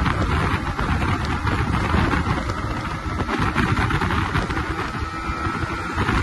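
Wind noise buffeting the microphone mixed with a Yamaha MT-15's 155 cc liquid-cooled four-stroke engine running at speed, about 100–110 km/h in fifth gear. The sound is a steady, rumbling rush with no distinct beat.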